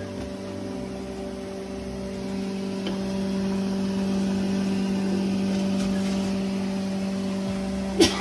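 Steady machine hum of kitchen equipment, with a single sharp knock near the end.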